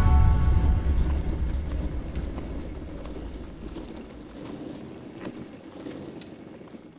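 A wheeled suitcase rolling over pavement: a low rumble with scattered clicks, fading out gradually. The last notes of background music die away in the first second.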